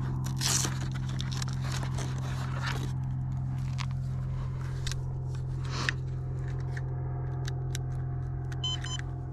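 Handling noise from a lipo battery being unplugged and pulled out of a foam RC plane's nose hatch: scraping and crackling of the pack, strap and wires for the first few seconds, then a few light clicks. A steady low hum runs underneath throughout.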